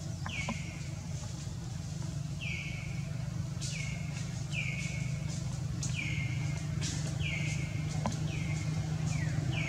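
A bird calling over and over, each call a short high note sliding down in pitch, about once a second, over a steady low hum.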